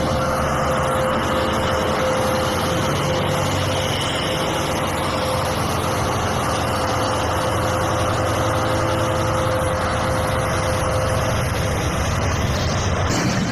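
BelAZ 75601 mining haul truck's big diesel engine running steadily at close range: a dense low rumble with a steady whining tone over it that fades out near the end.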